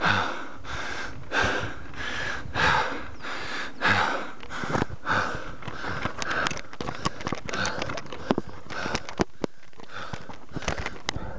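Heavy, rhythmic panting from a rider worn out by a hard uphill climb, about one and a half breaths a second. From about halfway through, a string of sharp clicks and knocks from handling the camera runs over the fainter breathing.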